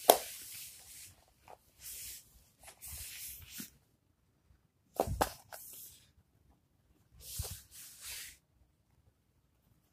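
Cat hissing in about five short bursts while playing rough, with a couple of soft thumps.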